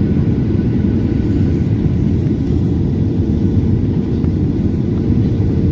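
Steady low rumble of a Boeing 737-900's engines and airflow heard from inside the passenger cabin during the approach, with a faint steady hum above it.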